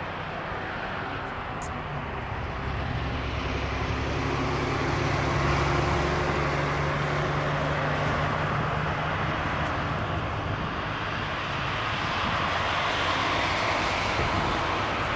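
Steady engine drone with a broad hiss from an aircraft tow tractor pulling an Airbus A321neo along the apron. A low hum swells about two seconds in and eases off after the middle.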